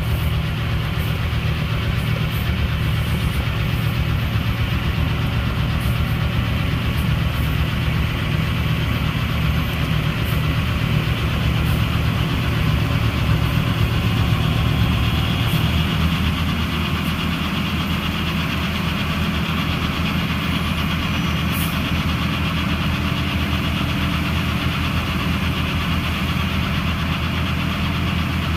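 Heavy diesel wheel loader with a snowblower head running steadily while blowing a snowbank into a dump truck alongside. The truck's diesel engine runs with it, and the engine note shifts a little about halfway through.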